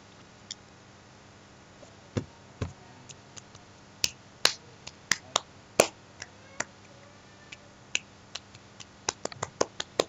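A series of about two dozen sharp, short clicks at irregular intervals, sparse at first and coming faster near the end.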